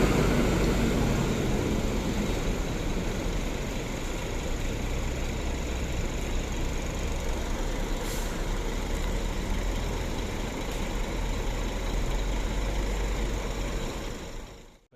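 Large coach bus's diesel engine running as the bus arrives, a steady low rumble that slowly eases off and drops away just before the end.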